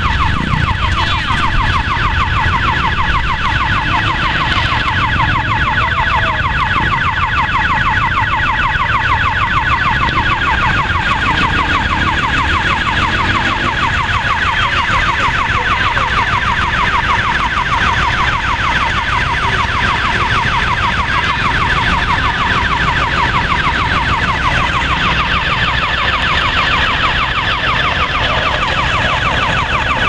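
Electronic level-crossing warning siren on a sugar-mill cane railway, sounding nonstop in a fast repeating warble to warn of a passing cane train, over a low rumble.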